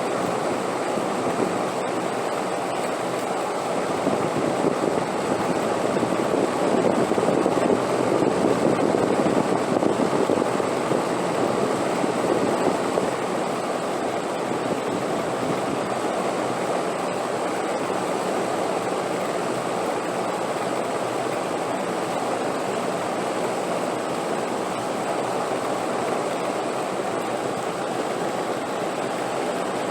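Wind blowing as a steady rushing noise. It swells louder for a few seconds, then settles back to an even level.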